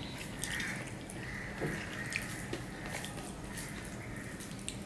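Fingers mixing rice with mustard fish curry on a steel plate: soft wet squishing with several light, sharp clicks scattered through it.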